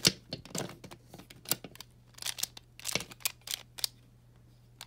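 Plastic clicking and clacking of a Pyraminx puzzle as its layers are turned by hand in quick, irregular twists. The turning pauses briefly near the end before another click.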